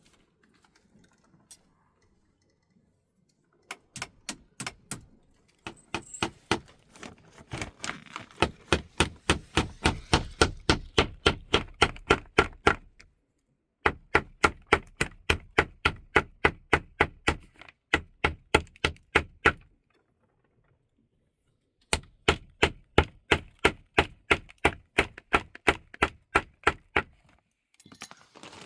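Rapid, even striking at about four blows a second, coming in four runs with short pauses between them.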